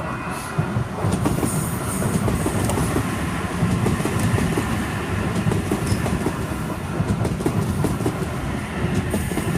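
Sydney Trains OSCAR (H-set) electric multiple unit arriving alongside the platform: a steady rumble of the cars rolling past, with wheels clacking over the rail joints.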